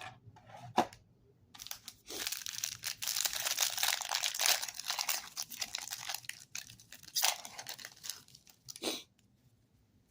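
A foil trading-card pack wrapper being torn open and crumpled, with dense crinkling for several seconds. A few light knocks come before and after it.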